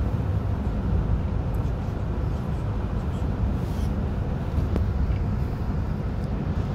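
Steady low rumble of road and engine noise inside a moving car's cabin, with a single light click about five seconds in.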